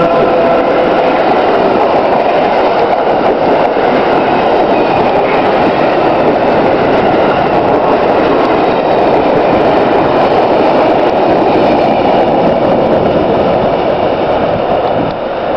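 Electric-hauled passenger train passing close by at speed: a steady loud rush and rumble of coaches and wheels on the rails. A brief whine from the locomotive at the very start fades within the first second. The sound eases off near the end as the last car goes by.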